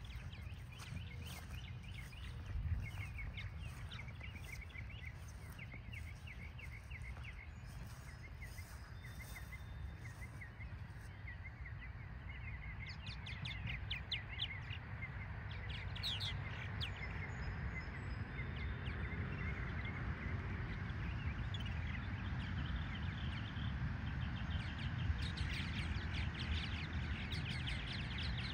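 Short chirping animal calls, repeated many times over a steady low rumble; the calls grow thicker and louder about halfway through.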